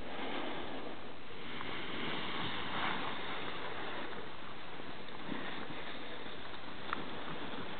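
Steady wind rushing over the microphone, swelling briefly a little under three seconds in, with a faint sharp click near the end.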